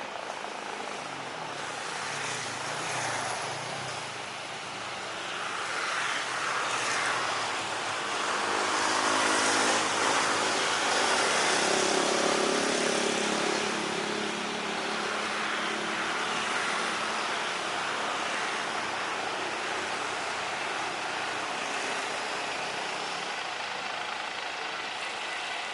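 Aircraft engine noise at an airport, swelling to its loudest about ten seconds in with a faint droning pitch underneath, then holding as a steady rush.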